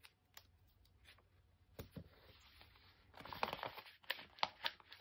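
A glossy sticker sheet crinkling and crackling as stickers are peeled off it and pressed onto a magazine page. It is quiet at first, then a run of rustling and a few sharp crackles come from about three seconds in.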